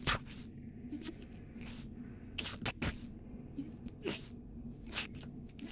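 A spoon stirring chunks of marinated pork and cornflour in a stainless steel bowl: irregular short wet squelches and scrapes, one or two a second, over a faint steady hum.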